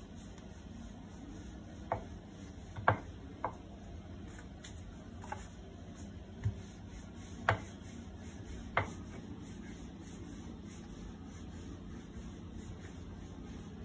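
Wooden rolling pin rolling out wheat-flour dough on a board, a soft rubbing with about seven sharp knocks in the first nine seconds as the pin and board clack against the counter.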